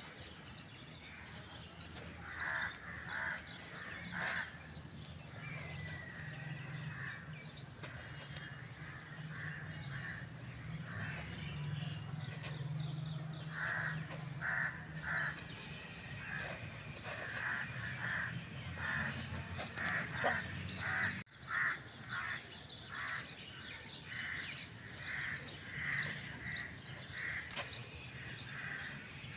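Birds calling outdoors: short calls repeated in bouts, coming about one or two a second through the second half, over a low steady hum.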